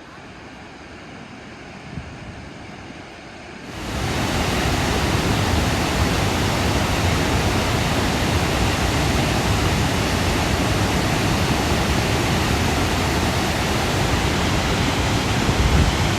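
Water rushing over Harajiri Falls, a steady noise that turns much louder about four seconds in.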